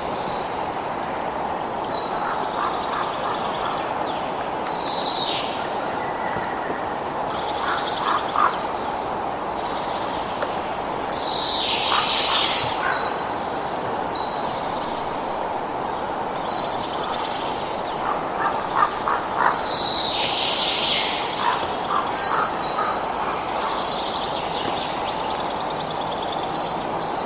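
Wild birds calling over a steady rushing background noise, with repeated short chirps and downward-sliding calls. Bunches of quick rattling notes come in now and then.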